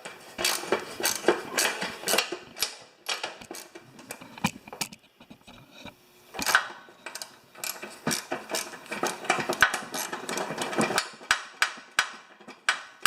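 Small socket ratchet clicking in short runs while loosening bolts, mixed with clacks of metal tools against the tractor's frame.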